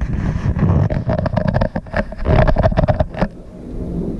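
Thunderstorm noise on the camera microphone: loud, gusty rushing full of sharp crackles, dying down to a steadier rain hiss about three seconds in.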